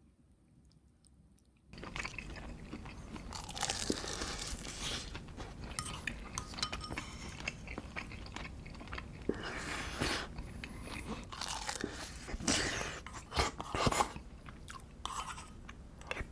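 A person eating close to the microphone: chewing and biting into braised kimchi with pork belly, with crunchy bites and small clicks. It starts about two seconds in, after near silence.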